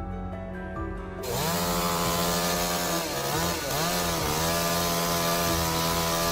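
Background music, cut off about a second in by a chainsaw running at high revs. Its pitch dips twice as it bogs under load in the cut, then holds steady.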